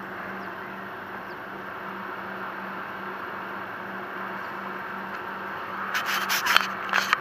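Steady background hiss with a faint low hum, then a cluster of clicks and rustles about six seconds in as fishing tackle is handled.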